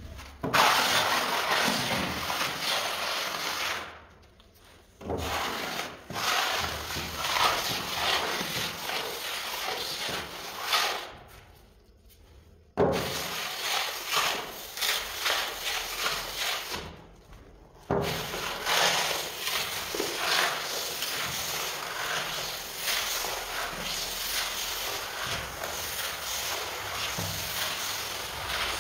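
Steel filler spatula scraping and rubbing back and forth across a sanded oak parquet floor, spreading joint filler into the gaps between the boards. The strokes run on in long stretches, broken by three short pauses.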